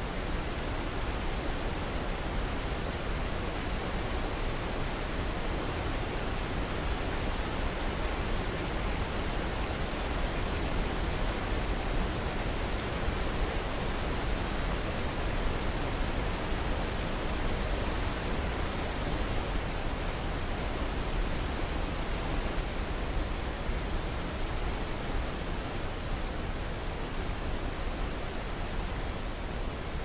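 Whitewater river rushing over boulders below a waterfall: a steady, unchanging rush of water.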